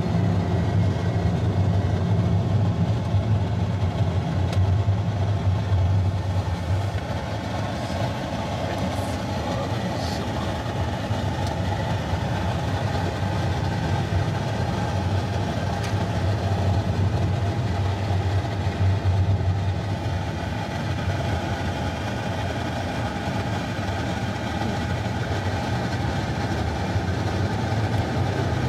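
Steady road and engine noise inside a moving car: a constant low hum under an even rush of tyre and wind noise.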